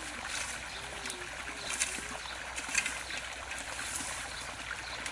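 Water pouring from the end of a hose into a shallow muddy pool, a steady splashing rush.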